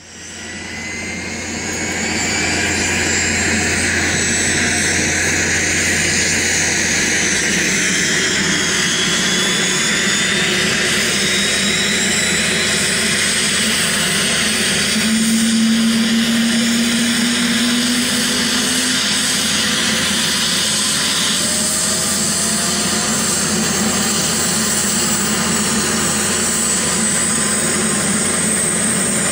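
Steady aircraft engine and propeller noise, a continuous drone with whining tones that glide slowly up and down in pitch, fading in over the first two seconds.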